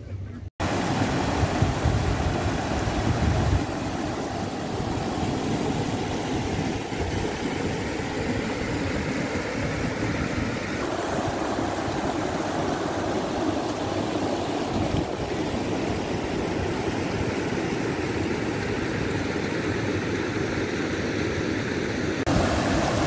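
Mountain stream rushing over rocks as white water, a steady loud rush with a deeper rumble in the first few seconds.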